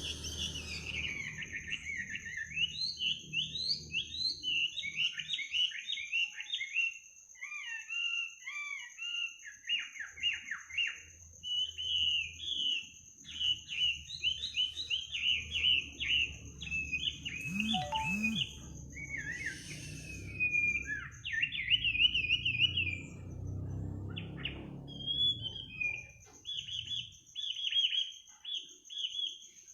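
A songbird singing a long, varied song of quick chirps, slurred notes and trills, with only brief pauses. A steady high-pitched tone runs behind it.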